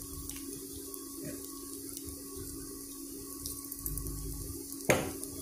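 Onions, green chillies and tempering spices sizzling in hot oil in a nonstick frying pan: a steady, even hiss, with the induction cooktop's steady low hum underneath. A single sharp knock near the end.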